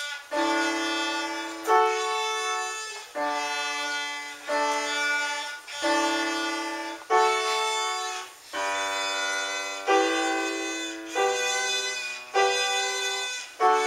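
A child's solo violin playing a slow melody with piano accompaniment, a new note or chord starting about every second and a quarter.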